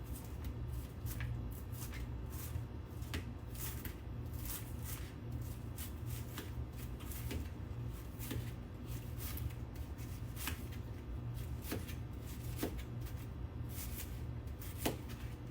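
Knife slicing through a head of cabbage on a cutting board: irregular crisp crunches and taps, roughly one or two a second.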